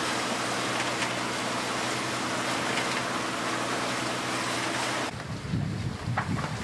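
Aboard a sailing catamaran under way: a steady low hum under an even hiss of wind and water, then about five seconds in it cuts abruptly to wind buffeting the microphone in uneven gusts.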